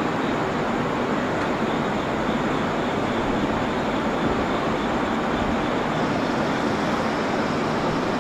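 Train at a station platform, a steady, even rolling noise with no distinct tones or knocks.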